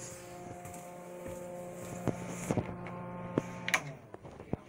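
A steady electrical hum, made of several held tones, that cuts off suddenly about three-quarters of the way through, with a few sharp clicks and knocks from the phone being handled.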